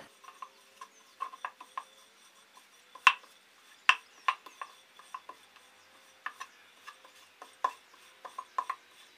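Metal rolling pin working a stuffed dough round on a wooden board: scattered light clicks and knocks as the pin and its handles meet the board, with two sharper knocks about three and four seconds in.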